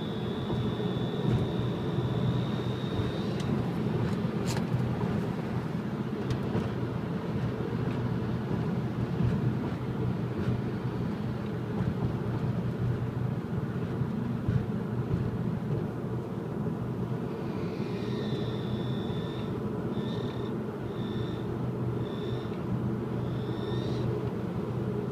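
Volkswagen Passat B6's turbocharged 2.0 TFSI four-cylinder engine running, with a high-pitched whistle each time the accelerator is pressed. The whistle holds for the first few seconds and stops. After a long stretch of plain engine sound it returns near the end as one longer whistle, then a quick run of short whistles about a second apart, one per throttle press.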